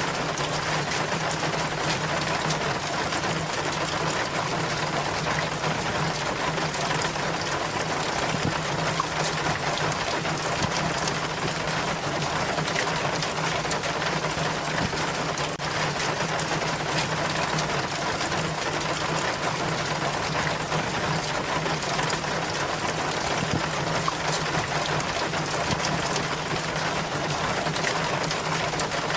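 Rainwater running and splashing steadily down a rain chain, with a steady low hum underneath.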